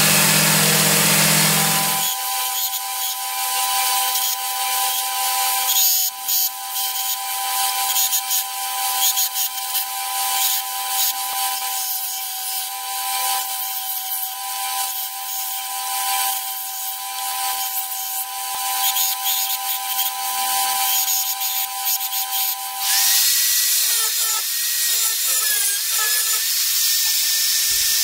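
Workshop power tools working the steel of a knife blank: a steady motor whine with scraping and irregular ticks, which changes about five seconds before the end to a different whine that wavers in pitch. A low hum fills the first two seconds.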